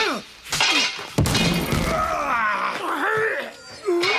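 Brawl between two men: thuds in the first second, then a loud crash about a second in, followed by strained groaning and yelling that rises and falls for about three seconds.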